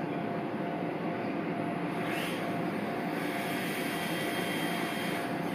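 Toyama Chiho Railway TLR0600 and T100 low-floor trams standing at a station: the steady hum of their onboard equipment, with a steady whine that stops near the end. A short hiss comes about two seconds in.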